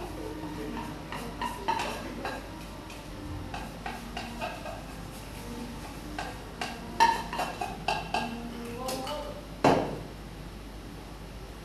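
A utensil stirring and clinking against a metal pot, with scattered knocks and clinks of utensils and bottles on the table. A cluster of clinks comes past the middle, and the loudest knock is near the end.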